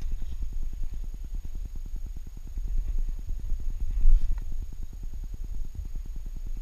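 Muffled body noise picked up by a GoPro strapped to a walking Saarloos wolfdog's back: a low rumble with rapid, even pulses about eight a second, and a louder knock about four seconds in.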